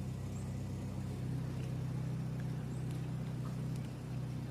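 Automatic gate's electric motor running with a steady low hum as the gate opens.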